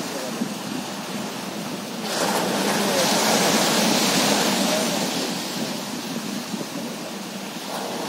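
Sea surf on a beach: a wave breaks about two seconds in, its rush of white water loudest around the middle and dying away as it washes up the sand, over the steady sound of the sea.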